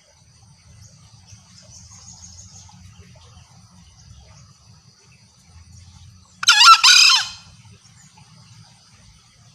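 Green junglefowl giving one short, harsh two-part call about six and a half seconds in, over a faint, steady, high-pitched drone of insects.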